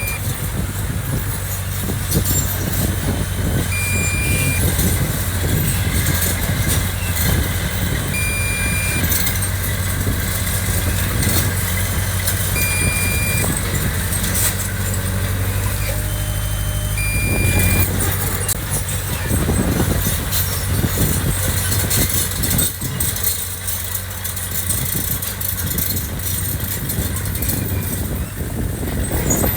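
Diesel engine of heavy earthmoving machinery running steadily under work, with clanking. A reversing alarm gives a single short beep about every four and a half seconds, stopping about eighteen seconds in.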